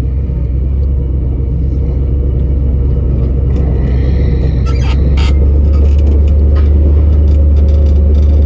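Low engine and road rumble heard inside the cab of an old GMC 3/4-ton pickup as it drives, with a few brief rattles. The drone grows louder about halfway through.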